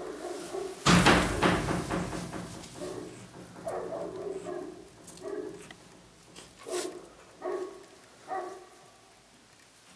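Goats bleating softly: a loud call about a second in, then a string of short calls spaced about a second apart, fading toward the end.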